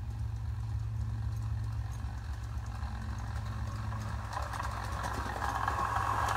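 Ride on Railways battery-electric miniature locomotive running towards the listener on its track, with a rhythmic clicking of its wheels over the rail joints. A whine grows louder over the last couple of seconds as it gets closer.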